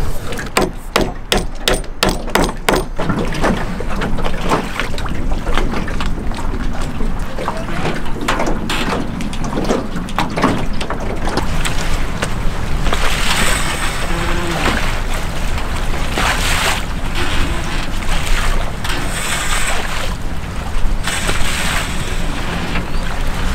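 Wind and water noise around the boat, with a quick run of sharp clicks in the first few seconds and gusts of hiss in the second half.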